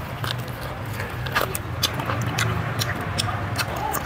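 Close-up chewing and mouth clicks of people eating chewy python meat and skin: irregular wet smacks and clicks. A steady low hum runs underneath.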